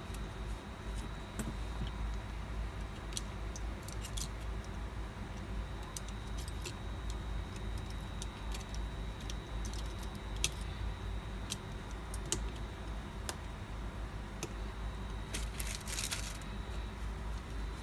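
Scattered small clicks and ticks from a precision screwdriver and tiny screws working on an opened iPhone 7's logic board and frame, with a quick run of clicks near the end, over a steady low hum.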